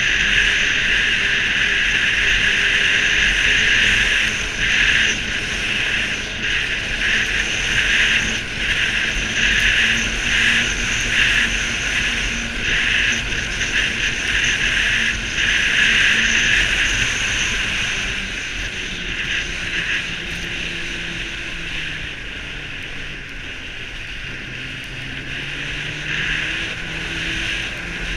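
Snowmobile riding at speed: a steady rush of engine, track and wind noise, with the engine's pitch faint beneath it. From about two thirds in the noise eases off a little and the engine note dips and then rises again.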